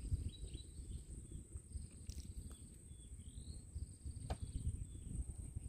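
Short high chirping bird calls, some rising, over a steady high-pitched insect drone, with a low rumble underneath and a couple of faint clicks.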